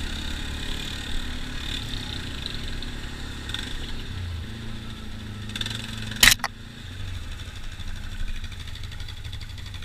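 ATV engine running steadily while the quad is ridden over a gravel trail, with a single sharp knock about six seconds in.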